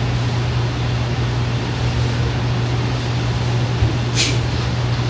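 A steady low hum under an even room hiss, with one short, sharp hiss about four seconds in.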